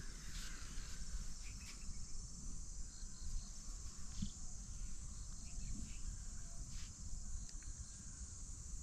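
Steady high-pitched chirring of crickets, with a few faint short chirps over it.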